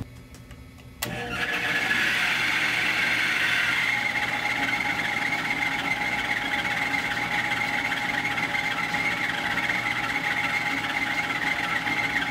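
A small milling machine's spindle motor switches on about a second in and then runs at steady speed with a constant whine, spinning an edge finder.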